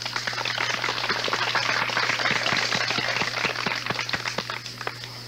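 Audience applauding. The clapping builds over the first couple of seconds and thins out about four and a half seconds in, over a steady low hum.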